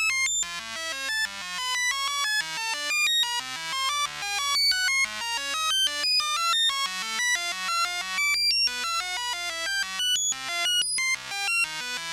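High-pitched electronic sound effect: a fast, unbroken run of short synthesized beeps, several a second, jumping up and down in pitch at random.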